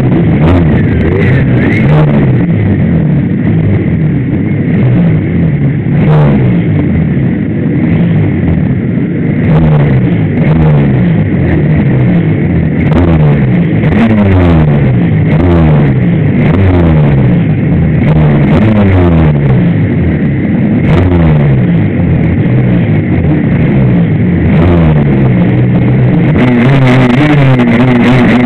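Suzuki RGV250 two-stroke engine, heard from a camera on its fairing, revved again and again with the revs climbing and dropping back each time, amid other racing motorcycles' engines.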